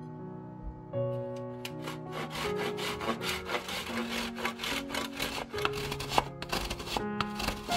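A block of Parmesan rubbed quickly up and down a stainless-steel box grater: rasping grating strokes, several a second, starting about a second and a half in. Background music plays throughout.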